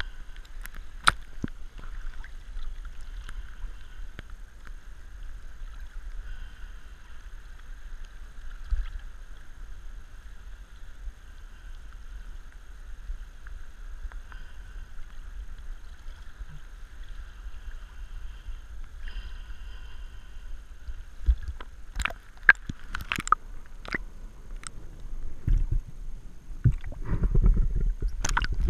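Water sloshing and lapping against a head-mounted camera housing at the surface, muffled by the diver's hood. About two-thirds of the way in, sharp knocks start, and near the end a louder low churning rumble follows as the camera goes under water.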